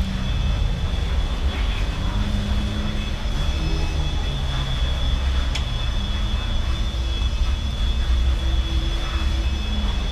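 Steady low rumble of background noise with a constant high-pitched whine over it.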